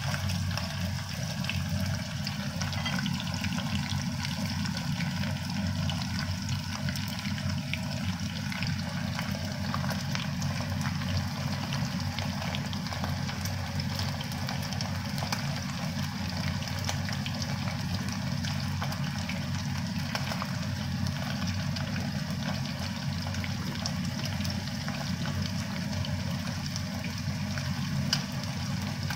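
Hot oil sizzling and crackling steadily around pandan-leaf-wrapped chicken pieces deep-frying in a small pot, with a steady low hum underneath.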